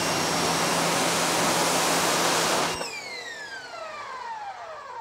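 Westinghouse ePX3000 electric pressure washer spraying through its green 25-degree nozzle: a loud, steady hiss of water over the motor's hum and whine. Almost three seconds in, the trigger is released and the spray cuts off suddenly, and the motor's whine falls steadily in pitch as it winds down.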